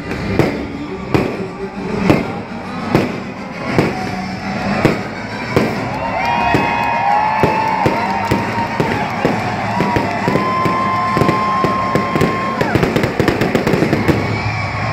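Fireworks shells bursting overhead, a sharp bang about once a second at first. About six seconds in, the bursts speed up into a rapid barrage of bangs and crackles.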